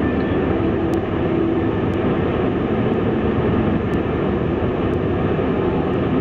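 Boeing 747 cabin noise during taxi, heard inside the cabin over the wing: the jet engines running at idle and the airframe rolling along the taxiway make a steady low rumble with a faint hum.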